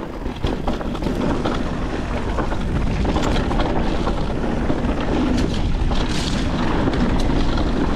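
A mountain bike descending a rough dirt trail: wind buffeting the microphone with a steady low rumble, tyres rolling over dirt and rock, and frequent sharp clicks and rattles from the bike over bumps.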